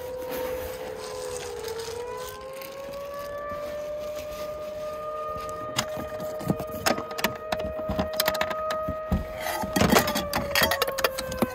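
Outdoor tornado warning siren wailing, its pitch slowly rising and falling. From about halfway in, irregular sharp taps and knocks come in over it and grow louder.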